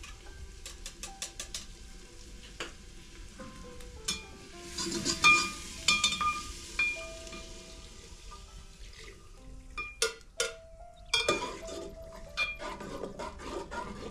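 Metal ladle and steel bowl clinking and scraping against a pot on a wood-fired mud stove, with a sizzle from the hot pot. Sharp clicks of metal on metal come scattered through, with a cluster of knocks near the end.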